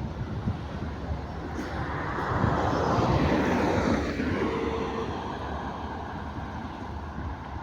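Freight train hauled by an electric locomotive passing by: a steady rumble that swells to its loudest about three seconds in, with a falling pitch as it goes past, then fades.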